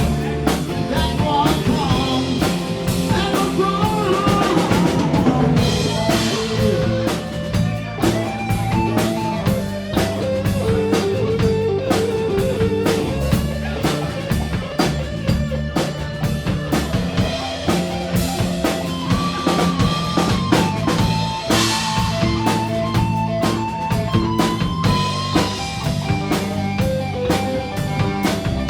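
Live blues-rock band playing an instrumental passage of the song without vocals: a drum kit keeps a steady beat under bass and a melodic electric guitar line.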